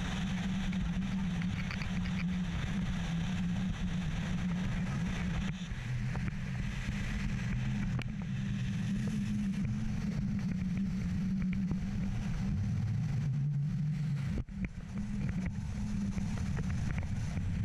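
Engine of a 2005 Regal Commodore 2665 express cruiser running at speed under way, with wind and water rushing past. The engine note drops lower for a few seconds twice, about a third of the way in and again later on.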